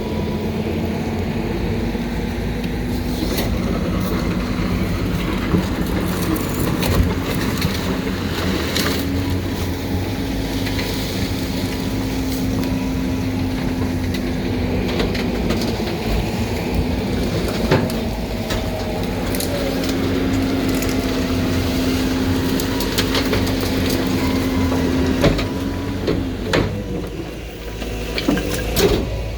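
Heil refuse truck's compactor running with the engine held at raised revs, a steady drone that dips briefly around the middle and falls off near the end, with scattered cracks and snaps of bulky waste being crushed.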